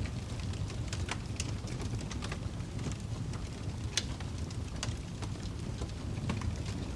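Wood fire burning: irregular sharp crackles and pops of burning logs over a low steady rumble.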